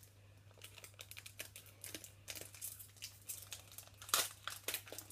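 Foil wrapper of a Pokémon card booster pack crinkling as it is torn open and handled: a run of irregular crackles, the loudest just after four seconds in.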